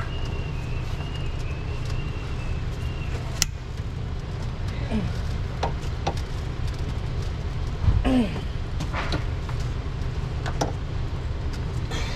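Wrench and socket work on the J35 V6's cylinder head bolts: scattered sharp clicks and knocks of the tool on metal, the loudest about eight seconds in, over a steady low rumble.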